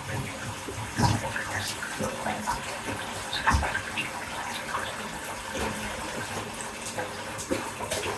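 Bath tap running into a bathtub, a steady rush of filling water, with scattered small clicks, the sharpest about a second in and midway through.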